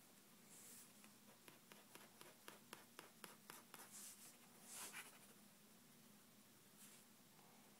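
Faint pen on paper: a quick run of light taps as the tip dabs dots onto the sheet, then a few longer scratching strokes about four and five seconds in and once more near the end.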